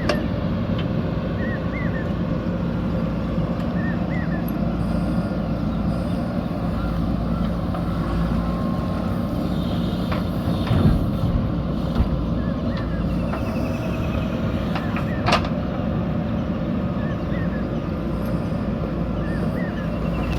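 JCB backhoe loader's diesel engine running steadily under work, with a few sharp knocks about halfway through and again later.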